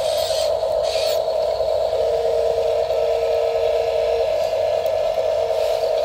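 Steady electric whine of a Huina RC dump truck's motors as it raises its tipper bed to dump gravel, with a second, lower whine joining for about two seconds midway and brief hisses near the start.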